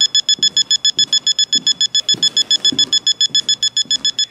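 WiFi Analyzer app's signal meter beeping from a smartphone: rapid, high-pitched, evenly spaced beeps, about eight a second. The fast beep rate signals a strong Wi-Fi signal from the access point.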